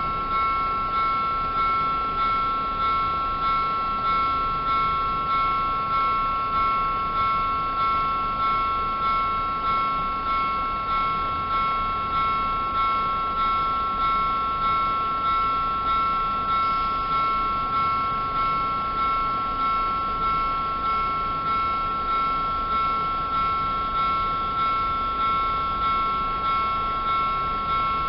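Electronic warning bell of a railway level crossing ringing while the barriers are down: a steady run of identical metallic-sounding strokes, a little over one a second, each struck sharply and fading away.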